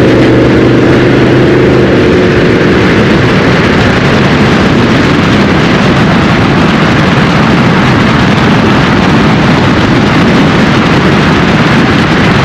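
Exhaust of a GMC Sierra 2500 HD's 6.6 L L8T gas V8 through a GM Borla system, heard right at the tailpipe tip as the truck gathers speed from about 50 to over 60 mph. The engine note is plain for about two seconds, then is largely drowned by steady wind and road noise.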